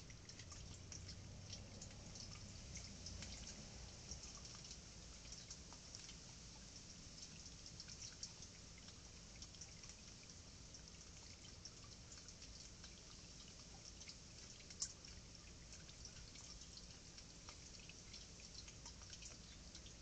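Near silence: faint outdoor background with a scatter of tiny soft ticks, and one sharper click about fifteen seconds in.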